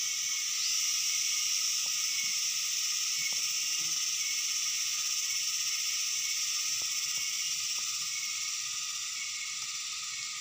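Steady high-pitched insect chorus, like cicadas or crickets, with a few faint ticks from handling.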